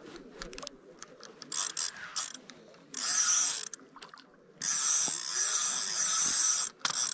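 Fishing reel working as a hooked trout is brought in: a short stretch of reel noise about three seconds in, then a longer one of about two seconds, with a few scattered clicks before.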